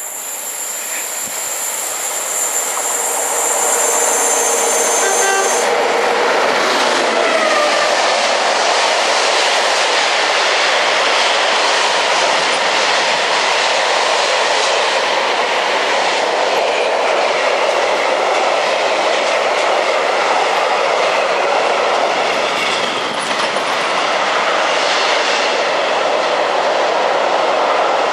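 Long freight train passing close at speed: a steady loud rush of wheels on rail that builds over the first few seconds. High steady tones ring at the start and stop about five seconds in.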